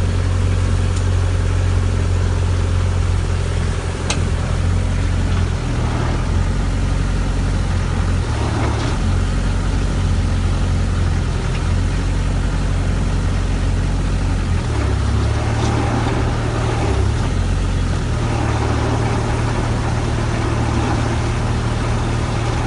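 Fraste MD/ML drilling rig's engine running steadily. Its low note drops and comes back up a few times, and there are a couple of short clicks.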